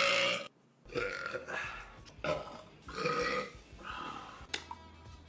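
A man burping, about five belches in quick succession a second or so apart, followed by a sharp click near the end.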